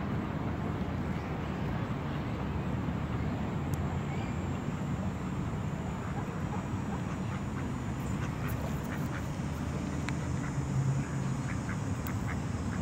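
Mallard ducks quacking over a steady low background rumble.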